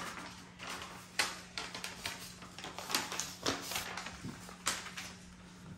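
Plastic-wrapped rolled diamond-painting canvas being handled and laid on a wooden table: rustling of the wrap with several light knocks and taps, over a faint steady hum.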